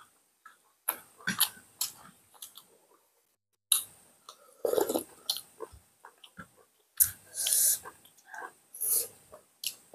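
Close-miked eating sounds: chewing and mouth noises from mouthfuls of food, in irregular short bursts with a brief pause about three seconds in.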